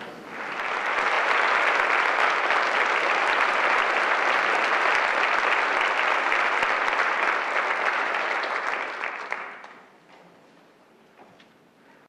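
Audience applauding: the clapping swells up within the first second, holds steady, and dies away about nine to ten seconds in.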